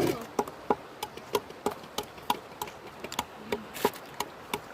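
Knife chopping steadily on a cutting board, even strokes about three times a second.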